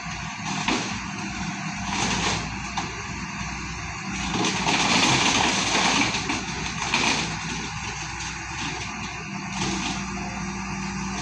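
Heavy machinery engine running steadily, growing louder and rougher for a few seconds in the middle, with occasional knocks.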